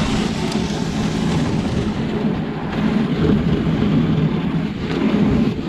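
Dog sled runners sliding over snow behind a running dog team, a steady rough scraping rush.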